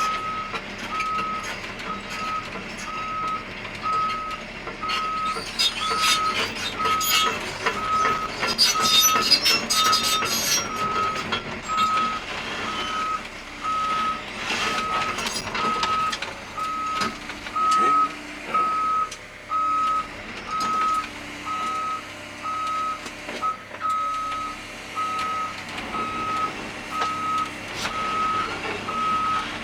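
Cat 320 excavator's travel alarm beeping steadily, a little more than once a second, as the machine tracks, over its running diesel engine. Clanks and rattles from the steel tracks come in bunches, heaviest a few seconds in and again around halfway.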